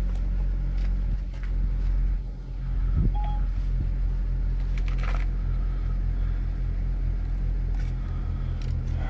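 BMW's engine idling steadily, heard from inside the cabin, with a few light clicks over it.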